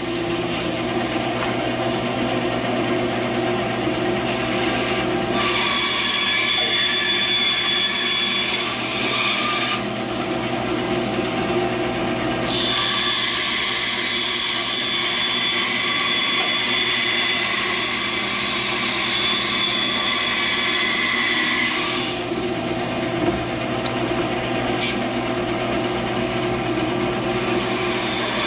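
Band saw running with a steady motor hum, its blade cutting a cedar board in three stretches: from about 5 to 10 seconds in, from about 12 to 22 seconds in, and again near the end.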